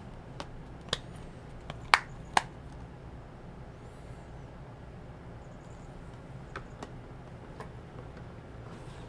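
A few short, sharp clicks and taps from a plastic disc case being handled, over a low steady room hum.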